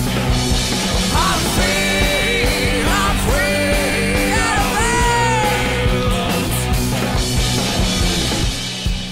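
Rock band's studio recording: electric guitars, bass and drums playing together, with a high lead line of sliding, bending notes over the top. Near the end the band thins out and the level drops a little.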